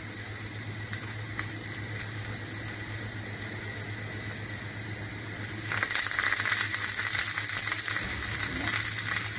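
Shallots and garlic frying in hot coconut oil in a small pan, a steady sizzle over a low hum. A little before six seconds in, curry leaves go into the hot oil and the sizzle turns louder, with quick crackling and spitting.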